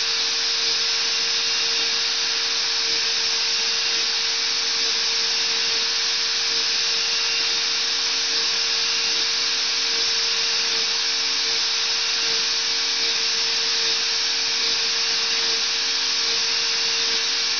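CNC router spindle milling marble, cooled by a flow of water. A steady hiss runs under a constant whine, with a lower hum that keeps switching on and off.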